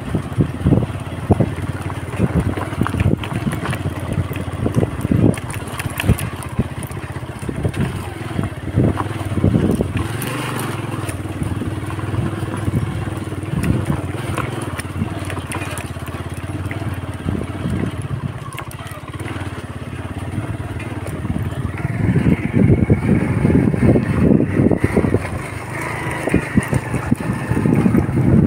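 Motorcycle running along a rough gravel and dirt road, with constant jolts and rattles over the loose stones; it grows louder about three-quarters of the way through.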